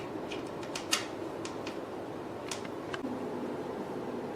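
Scattered light clicks and knocks of plastic and metal parts being handled and fitted as a shelf is installed on a beauty machine, the sharpest about a second in, over a steady fan-like hum.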